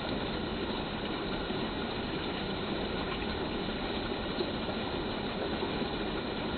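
Icy stream water rushing over rocks and branches: a steady, unbroken rush.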